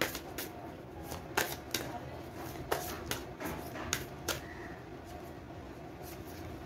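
Tarot cards being shuffled and handled, a string of sharp card snaps and clicks that comes mostly in the first four and a half seconds and then thins out.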